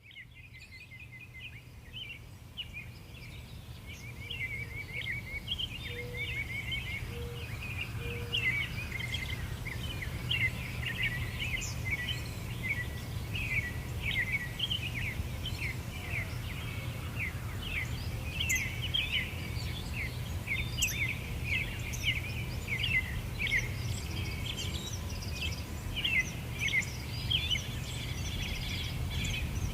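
Many small birds chirping and twittering together in quick, dense calls over a steady low rumble. The sound fades in over the first few seconds.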